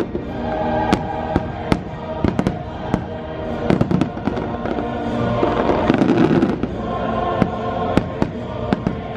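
Fireworks display: many shells bursting and crackling in quick, irregular succession over a loud musical soundtrack of held chords, some of them choral.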